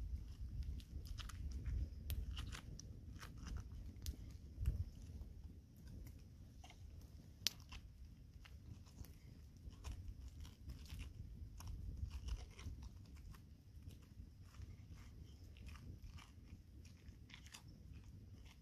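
Spoon scooping and scraping the flesh out of a whole pineapple shell: irregular wet crunching and scraping, with one sharper click about seven and a half seconds in.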